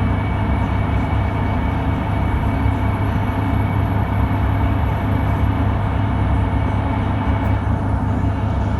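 Steady, loud low rumble of a running vehicle, with a faint constant whine above it.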